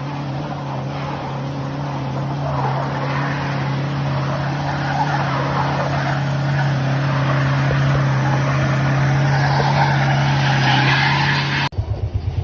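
A motor vehicle running steadily, with a low engine hum under a rushing hiss of tyres on a wet road that grows a little louder. Near the end it turns into a fast low pulsing and then stops abruptly.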